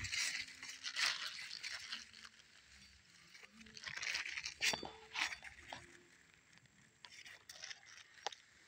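Pumpkin vines and leafy ground cover rustling and crunching in irregular bursts as they are walked through and pushed aside with a cutlass, with one short clink about halfway through.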